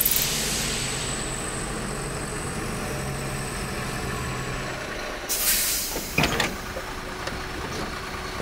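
Diesel delivery truck idling with a steady low drone. A short air-brake hiss comes about five seconds in, and a sharp clunk a second later.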